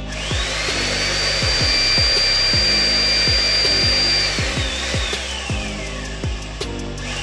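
Electric-over-hydraulic shop press's pump motor starting with a rising whine and running steady, then its pitch sagging as the ram bears down to press the hex drive shaft out of the snowmobile drive sprockets. The motor starts up again near the end.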